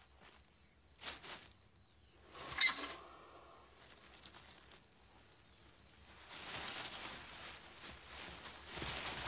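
European hamsters in their burrow: brief scuffling in soil and straw, then one sharp, high squeak about two and a half seconds in, the loudest sound. A longer stretch of scratching and shuffling in the sandy soil follows from about six seconds on.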